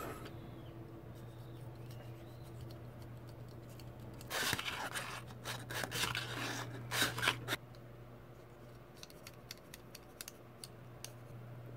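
Utility knife blade shaving a thin wooden stick: a run of loud rasping scrapes lasting about three seconds in the middle, then light scattered clicks as small chips are cut. A steady low hum underlies it all.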